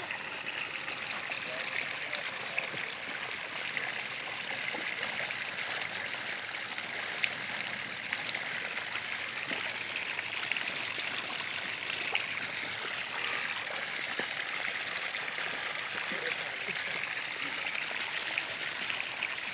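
Muddy water gushing steadily through a gap in an earthen bank and spilling into a pool, a continuous rushing, gurgling flow.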